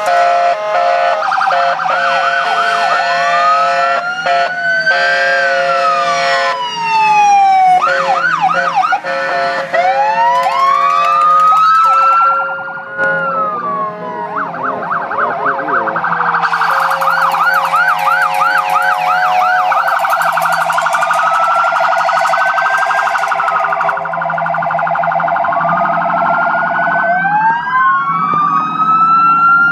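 Several fire truck sirens sounding at once, slow wails rising and falling over one another. Twice they switch to a fast yelp, with steady held tones underneath.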